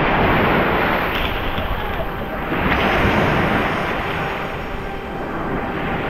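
Waves breaking on a sandy sea beach with wind buffeting the microphone, the surf rising and falling in swells every few seconds.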